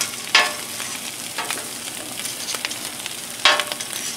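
Chopped pork sizzling steadily on a Blackstone flat-top griddle while a metal spatula scrapes and clacks against the griddle top as the meat is pushed into piles, with two louder scrapes, one about half a second in and one near the end.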